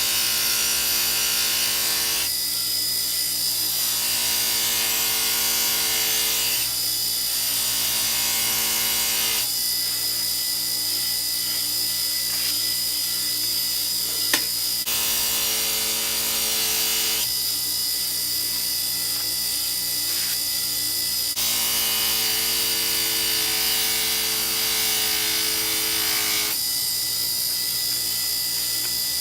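Electric grinder running steadily while a kitchen knife is sharpened on it, the motor's pitch and the grinding hiss changing every few seconds as the blade is pressed on and lifted for each pass. A single sharp click comes about halfway through.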